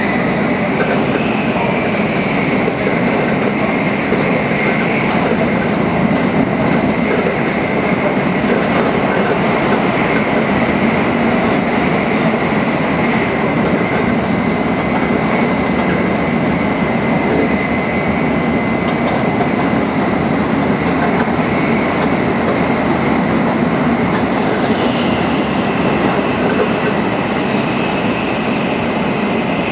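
Tokaido Shinkansen Nozomi bullet train running at high speed: a loud, steady rushing noise with a thin, steady high-pitched whine above it.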